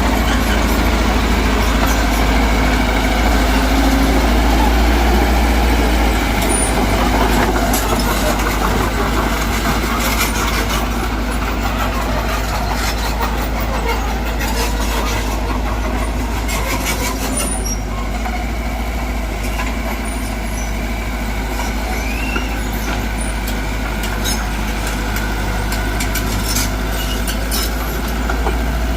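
Heavy earthmoving machinery's diesel engine running steadily, with scattered clicks and rattles in the middle stretch.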